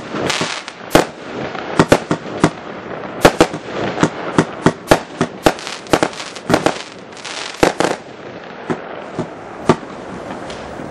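Street Fighter 93-shot consumer firework battery (cake) firing: a rapid, irregular string of sharp bangs over a continuous crackle, thinning to a few single bangs near the end.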